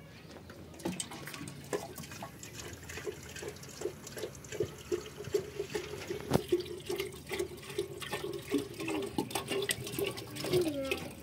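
Water or another liquid pouring and splashing into a metal vessel, with sharp clinks of metal pots and dishes being handled.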